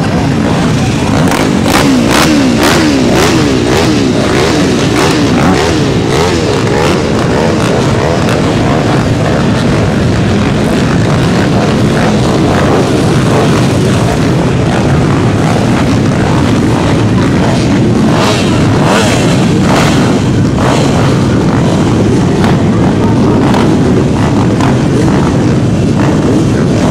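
A pack of dirt bike engines racing, many engines revving up and down over one another in a steady loud din.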